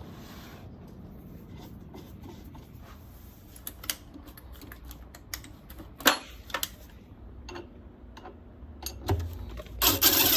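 A 7/16-inch socket ratchet clicking as a bolt is tightened, with scattered knocks of tools and parts. A loud click comes about six seconds in, and a fast run of ratchet clicks near the end.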